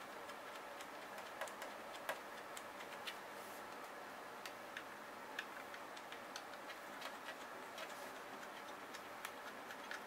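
Faint, irregular small clicks of a precision screwdriver turning screws out of the side of an aluminium MacBook Pro case, over a steady low hiss.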